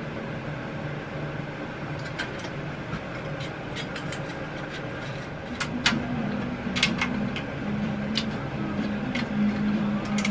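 A steady mechanical hum from something running in the shop. Over it come scattered light metallic clicks and taps as head bolts are fitted and run down into a small Briggs & Stratton engine's cylinder head.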